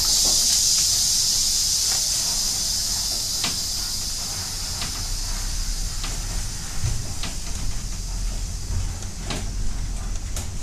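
Funicular car running up its track: a steady low rumble with a high hiss that fades over the first few seconds, and scattered light clicks and knocks.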